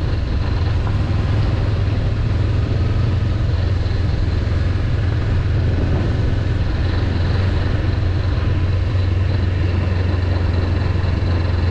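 Honda CB500X's parallel-twin engine running steadily at an even, unchanging speed, with no revving.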